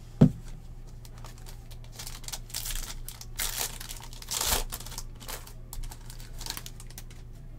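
A thump on the desk just after the start, then crinkling and tearing of plastic wrapping in several bursts as a box of trading cards is opened, the loudest rustle about four and a half seconds in.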